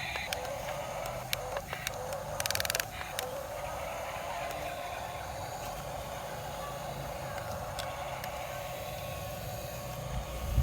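Small electric gear motors of a radio-controlled toy excavator or dozer whining steadily, wavering slightly in pitch, with brief plastic clatters about a second in and near three seconds in.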